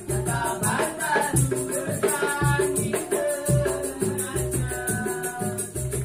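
Street busker's melodica playing a melody in held notes over hand percussion: a steady low drum beat with a fast, even rattle.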